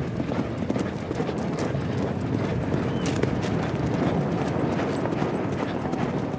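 Hoofbeats of several Mongolian horses galloping over grass, over a steady rushing noise.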